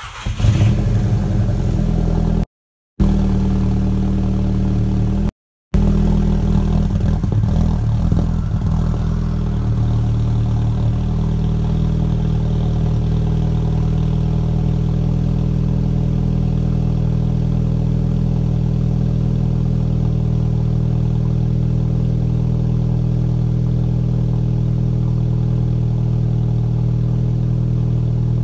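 Volkswagen GTI's turbocharged four-cylinder, fitted with a BorgWarner EFR 7163 turbo and a 3-inch turbo-back exhaust with race cat and no resonator, catching on a cold start: it runs an uneven high idle for the first several seconds, then settles into a steady idle from about ten seconds in. The sound cuts out twice briefly in the first six seconds.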